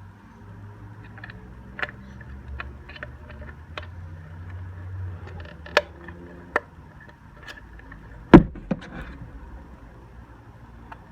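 Light plastic clicks and knocks from fitting the wheels onto a small plastic mini wheelie bin, with one much louder sharp knock about eight seconds in.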